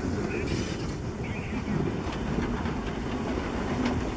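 German class 52 steam locomotive 52 8038 rolling past: a steady low rumble with wheels clicking over the rail joints. A short hiss comes about half a second in.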